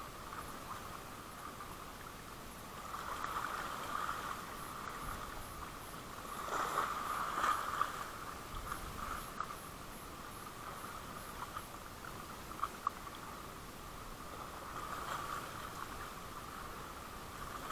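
Small Shimano FX 1000 spinning reel being cranked to bring in a hooked fish on a light rod: a soft whirring that swells and fades several times, with two sharp clicks about two-thirds through.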